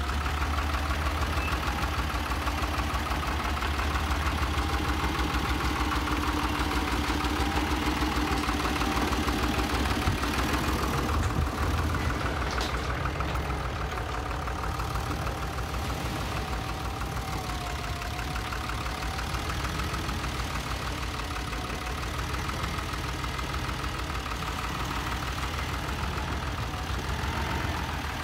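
Tractor engine idling steadily, a continuous even running with a fine rapid rhythm.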